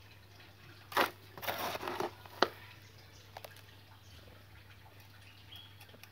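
Granular bonsai planting medium being scooped and poured with a hand scoop. A sharp scrape comes about a second in, then about a second of crunching rustle, then a single sharp click.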